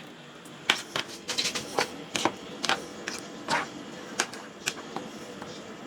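About a dozen sharp, irregular clicks and taps from kitchen utensils and fish pieces being handled while the fish is readied for the frying pan.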